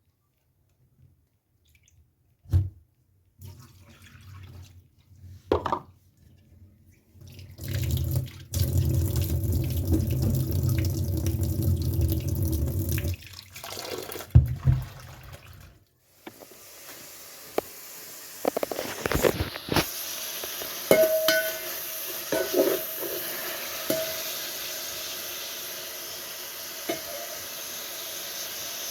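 Kitchen sounds: a few knocks, then water running hard at a sink for about five seconds, followed by a steady hiss with scattered clinks of dishes.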